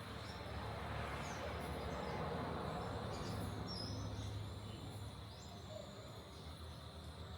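Steady background noise with a low hum and a few faint, short high chirps.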